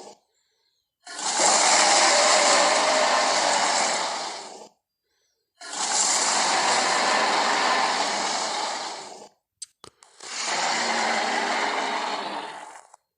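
Three Giganotosaurus creature sound effects, each a long, rough, breathy call lasting about three and a half seconds and fading out, separated by short silences, with two brief clicks just before the third.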